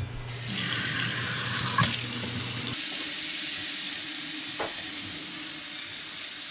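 Water running steadily into a drain line that is being filled to test for a clog; a constant rushing hiss starting about half a second in, with a low hum under it for the first few seconds.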